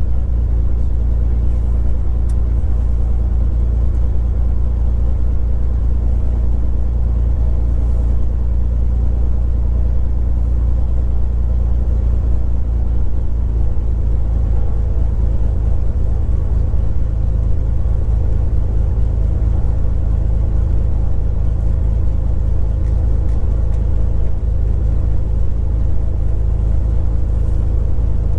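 Beechcraft G36 Bonanza's six-cylinder Continental IO-550 engine and propeller idling steadily, a constant low drone heard from inside the cockpit.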